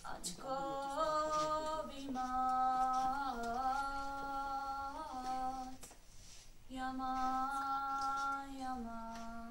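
A girl's voice singing a slow unaccompanied melody in long held notes, with a short pause for breath about six seconds in.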